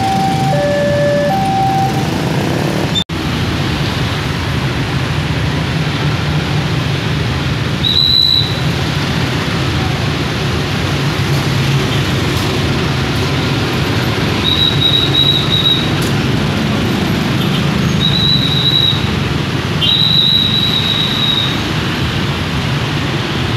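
A level-crossing warning chime plays a repeating tune of alternating notes and stops about a second and a half in. After that comes a steady low rumble of a slow-moving train and road traffic. A high, steady wheel squeal rises briefly about eight seconds in and several times in the second half.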